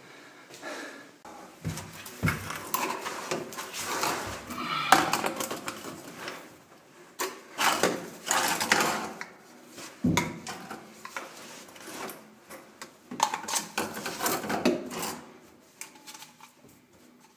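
White plastic bath waste and trap pipes being handled and pushed together: an uneven string of plastic knocks, clicks and scrapes, with a couple of dull thumps.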